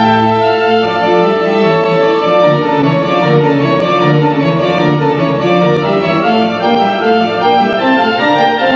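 Pipe organ playing full, sustained chords that shift every second or so.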